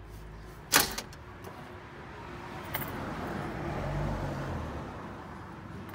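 A sharp metallic clink about a second in, a lighter click near three seconds, then a swelling rustle as fabric brushes right over the microphone.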